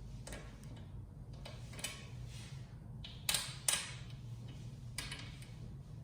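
A coin turning hard-tightened thumbscrews on a Corsair PC case: faint metallic clicks and scrapes, with two sharper clicks close together a little past halfway.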